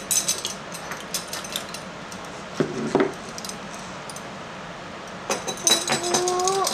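A ring of metal measuring spoons jangling and clinking against a glass jar as ground cinnamon is scooped out. There is a cluster of clinks at the start and another near the end.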